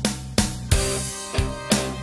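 Instrumental background music with a fast, steady beat of about three drum strikes a second over sustained guitar-like notes.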